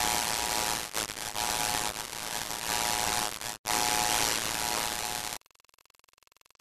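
Loud static-like hiss with a few faint steady tones in it, cutting out for a moment about three and a half seconds in and stopping abruptly about five and a half seconds in.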